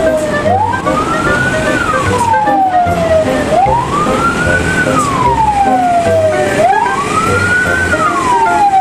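Toy tow truck's electronic siren wailing: a single tone that rises and falls slowly, three cycles about three seconds each, over a steady repeating beat.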